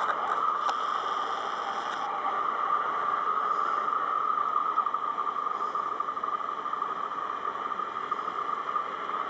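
Massey-Ferguson 4365 tractor pulling a loaded slurry tanker uphill while spreading slurry: a steady drone with no change in pitch.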